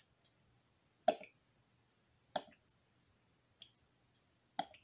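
Plastic oil bottle glugging as motor oil pours from it through a funnel: three sharp glugs about a second or two apart, with fainter ones between.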